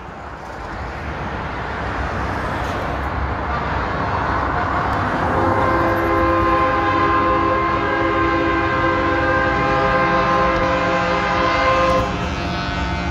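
Engine and road noise from an approaching semi-truck convoy builds up. About five seconds in, air horns sound a long held chord of several notes over the rumble, then stop abruptly near the end.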